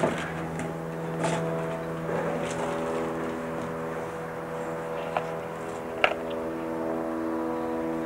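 Church bells ringing in the tower, several overlapping tones at different pitches humming on, with two sharp knocks about five and six seconds in.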